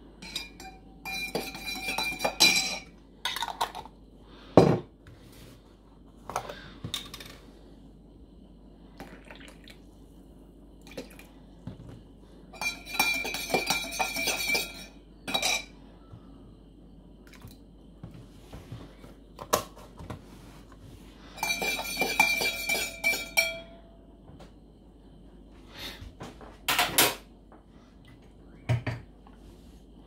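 Metal teaspoon stirring coffee in a stainless steel thermal cup, clinking rapidly against the cup's sides, which ring. It comes in three spells of stirring, with a few single knocks between them, the loudest about four and a half seconds in.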